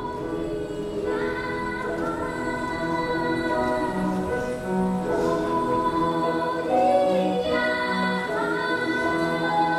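A children's choir singing a slow song in harmony, with long held notes, fading in just before the start.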